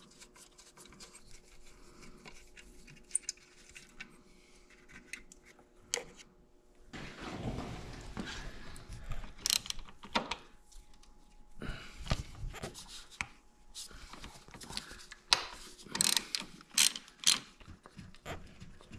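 Faint small clicks and scrapes of a screwdriver on a screw. From about seven seconds in, a hand socket ratchet clicks as it turns a bolt, with sharp knocks and scrapes of the tool against metal.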